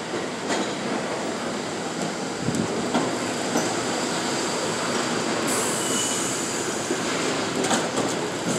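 R68 subway train pulling into an open-air station platform, its wheels clattering and squealing on the rails as the cars run past. A high hiss comes in suddenly about five and a half seconds in.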